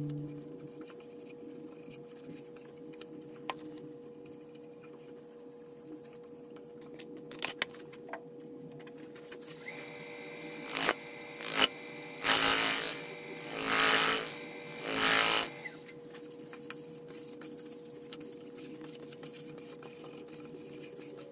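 Laguna wood lathe running with a steady hum while a cloth rubs finish onto the spinning ash heart bowl. From about ten seconds in, sandpaper held against the spinning wood gives a series of loud rasping strokes, three of them long, before the softer cloth rubbing returns.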